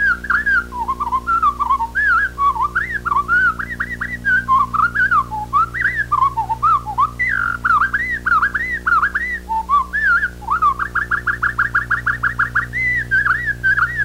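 Winter wren song played back slowed down, heard as a long unbroken run of whistled slurs and glides, with a rapid trill of evenly repeated notes about three-quarters of the way through. A steady low electrical hum runs underneath.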